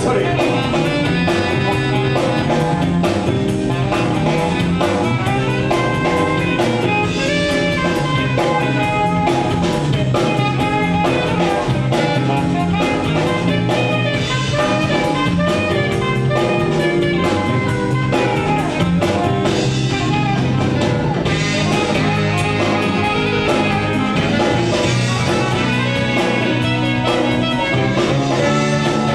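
A live band playing an upbeat funk-soul instrumental passage, with drum kit, bass and brass or saxophone lines.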